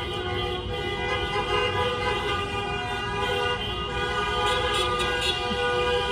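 Many car horns honking at once in celebration, several steady tones of different pitches overlapping in an unbroken chorus.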